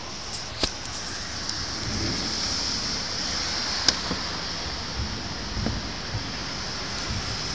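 Steady rain falling, an even hiss, with a few sharp taps and clicks. The loudest tap comes about four seconds in.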